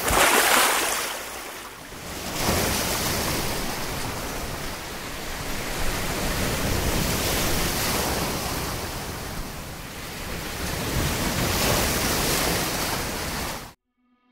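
Sea surf: waves breaking and washing in, a rushing noise that swells and eases every few seconds, then cuts off suddenly near the end.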